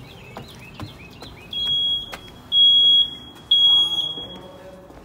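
A house alarm beeping, set off by the front door being opened: three loud high single-tone beeps about half a second long, one a second, starting about a second and a half in. Faint chirping and footsteps come before the beeps.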